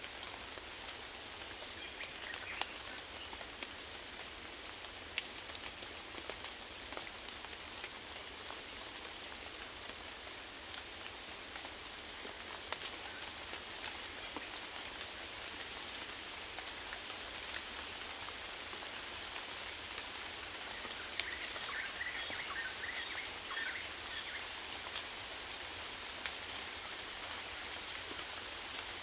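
Steady rainfall, with individual drops striking a surface as sharp ticks.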